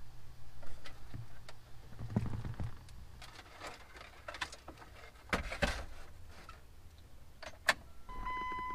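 Plastic wiring-harness connectors and loose wires being handled and pushed into the back of an aftermarket car radio: scattered clicks and rustling. Near the end the radio gives one steady electronic beep lasting over a second.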